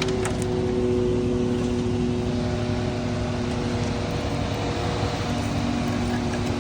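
An engine or motor running steadily at a constant speed, with a steady hum.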